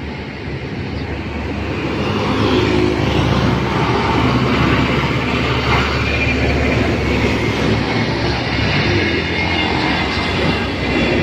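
Heavy road vehicles passing close by: a large cargo truck's engine and tyres rumbling past. The noise builds over the first two seconds and holds loud.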